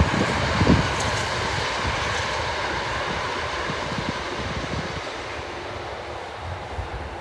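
GWR Class 165 'Networker Turbo' diesel multiple unit running past and fading steadily as it draws away, with low wind gusts on the microphone in the first second.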